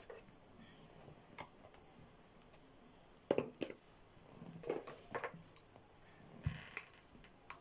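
Scattered small clicks and taps from handling a small plastic pot of nail glitter gel whose sealed lid is stuck, the loudest a little past three seconds in, with a dull thump near the end.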